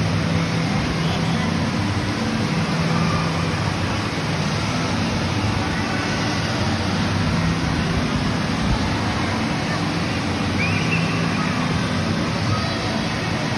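Steady din of an indoor water park: rushing water with many voices blurred together in the echoing hall.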